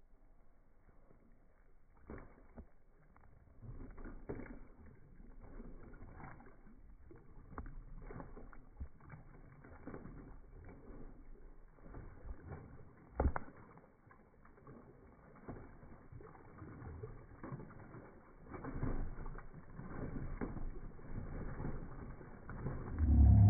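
Dog splashing and pawing at the water in a plastic kiddie pool, slowed down: irregular splashes and small knocks, with one sharp knock partway through and louder splashing near the end.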